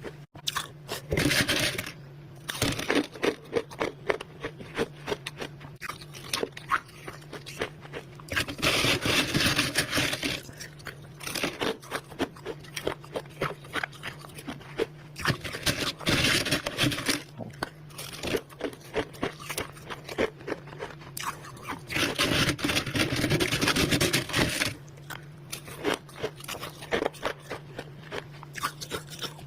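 Close-up crunching of freezer frost being bitten and chewed: quick runs of sharp crunches, with longer bursts of steady crushing several times.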